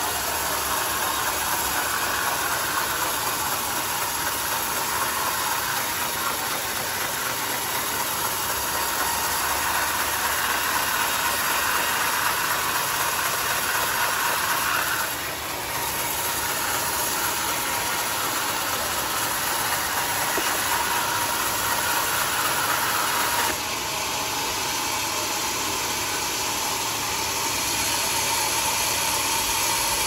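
Homemade band sawmill cutting through a large mahogany log: a steady, loud machine and blade noise. The noise dips briefly about halfway through and changes tone a little later.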